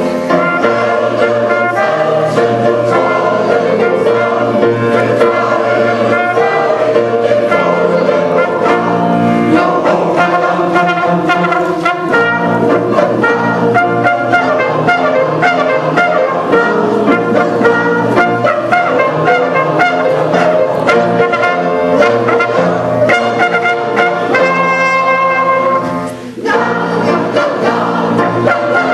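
Choir singing with brass accompaniment, a trumpet prominent. The music dips briefly about three seconds before the end, then carries on.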